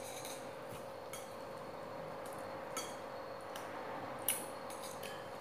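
Quiet eating sounds of a person chewing barbecued meat off a skewer: a scatter of faint, sharp clicks and ticks, the sharpest a little past four seconds in, over a steady faint hum.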